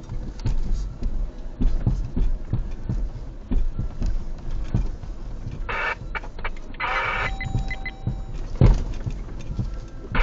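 Vehicle crawling over rough off-road trail, with irregular low thumps and knocks from the suspension and body. The loudest jolt comes near the end. There are two short bursts of scraping noise a little past the middle.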